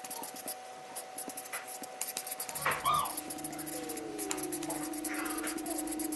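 Felt-tip marker scratching and squeaking across notebook paper in quick faint strokes. Short whining animal cries, like a pet's, come twice, and a steady hum joins about halfway.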